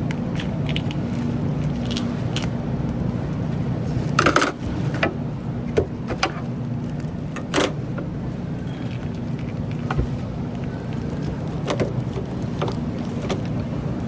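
Steady low machine hum with scattered sharp knocks and clicks of things being handled.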